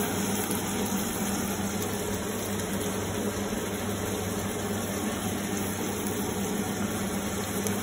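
Chopped tomatoes and onion frying in hot oil in a pan with a steady hiss, over a constant low hum.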